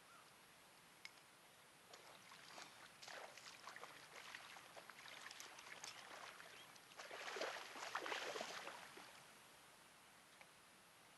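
Water splashing and sloshing in shallow water around a wading angler and a fish being handled at the surface, in irregular bursts that grow loudest near the end.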